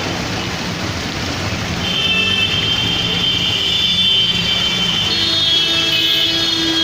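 Steady heavy rain falling, with high thin whining tones over it from about two seconds in and a lower hum joining near the end.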